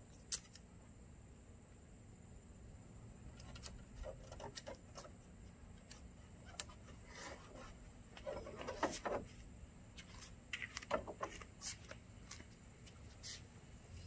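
Blue painter's tape being handled, torn into strips and pressed onto a truck grille: scattered short crackles and rips in a few clusters, over a faint steady background hum.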